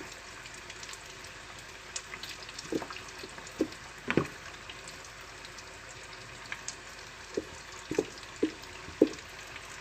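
Butter melting in a pan with a soft steady sizzle while ketchup goes in, giving a handful of short wet plops and bubbles, most of them in the second half.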